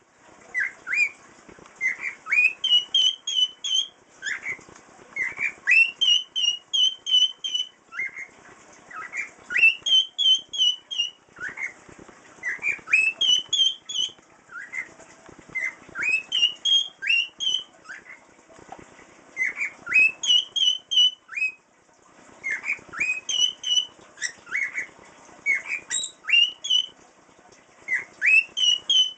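Cockatiel whistling a little tune over and over: short phrases of quick rising whistled notes, each phrase repeating every two to three seconds.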